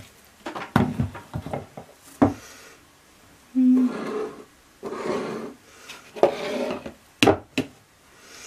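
Handling noises from a stick blender that is not running: sharp knocks and taps as its plastic parts are taken apart and set down, and rubbing and scraping of the blending shaft against a plastic mixing jug.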